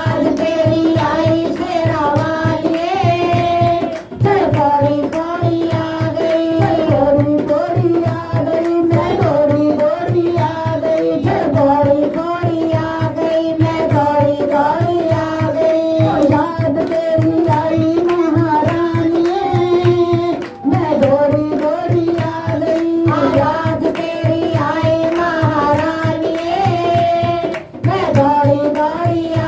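Hindi devotional bhajan music: a sustained, ornamented melody over a steady hand-drum beat.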